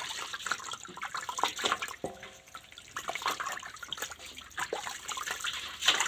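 Water running and splashing during a dog's bath, with many small irregular splashes and drips.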